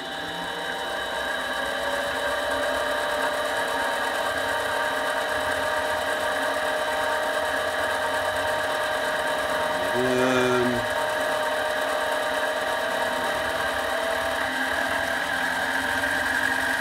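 Harbor Freight mini lathe's variable-speed spindle motor and gear drive whining as the chuck is brought up slowly from a standstill to about 600 rpm, the sound growing louder and rising in pitch as it speeds up.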